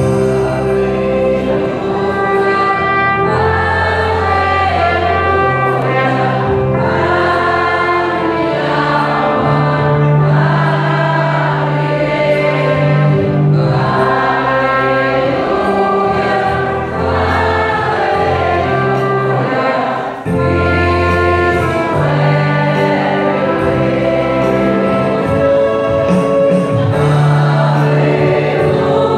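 Trumpet and keyboard accompanying voices singing a hymn, with long held low chords under a moving melody.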